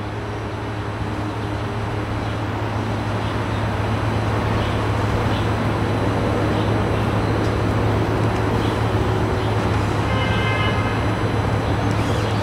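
A steady low rumble of background noise that slowly swells louder, with a brief high-pitched tone about ten seconds in.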